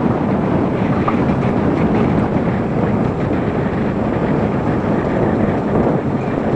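Rail-guided bobsled car running fast down tubular steel rails, its wheels giving a steady rumble, with wind buffeting the microphone.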